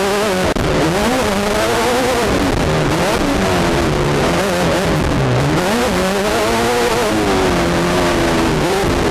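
Class 10 off-road race car's engine at racing speed, heard from inside the car. The revs rise and fall continually, dipping sharply about halfway through and then climbing again, over a steady rush of wind and rattle noise.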